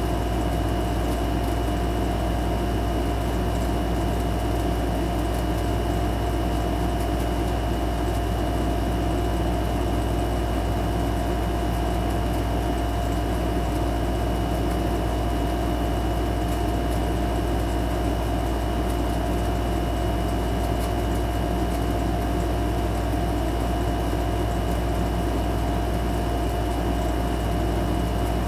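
A steady machine hum with a constant whine, unchanging throughout.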